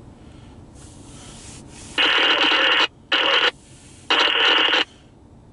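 CSX freight locomotive air horn sounding the grade-crossing signal of long, long, short, long. The first blast is faint and the last three are loud and close, each starting and stopping abruptly.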